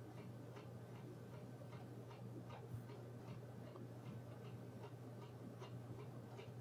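Faint, steady ticking of a clock, about two ticks a second, over a steady low hum.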